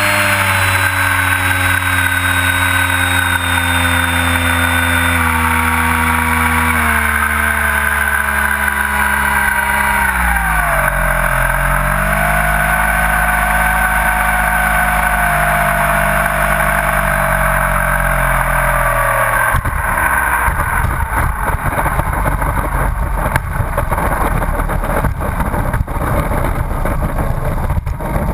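Radio-controlled T-28 Trojan model airplane's motor and propeller, heard from an onboard camera: it runs steadily, then is throttled back in two steps, dropping in pitch on the landing approach. Past the middle the motor tone drops away and a rough rumble takes over as the plane rolls on the runway.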